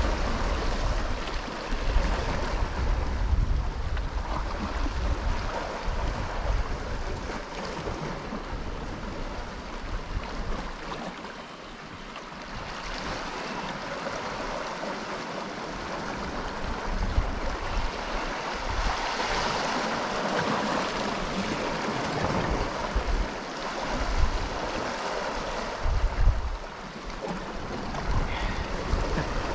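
Sea waves washing against the rocks, swelling and easing, with wind buffeting the microphone in low rumbles.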